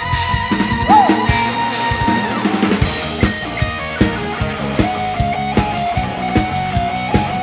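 Drum kit played along to a recorded song with guitar. Held and sliding notes open the passage, and the drums settle into a steady beat about three seconds in.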